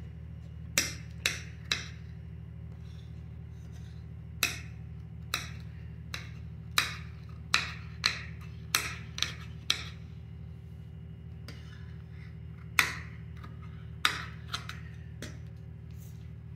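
Large metal tailor's shears snipping through lace net fabric: a series of sharp clicks as the blades close, irregularly spaced, with short pauses between runs of cuts.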